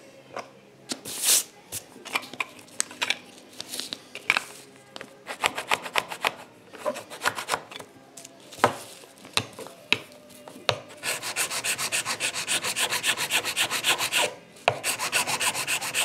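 Hand file and abrasive scraping a 3D-printed PLA plastic piece to smooth it. Irregular scrapes and taps at first; from about eleven seconds in, a fast, even back-and-forth rasping, with a brief pause near the end.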